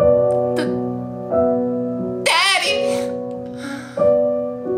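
Slow, sustained piano chords, a new chord struck about every second and a half, with a short wavering vocal wail about two and a half seconds in.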